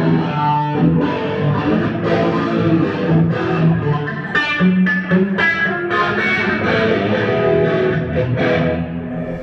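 Electric guitar played loud through a Marshall half stack amplifier, a continuous line of changing notes.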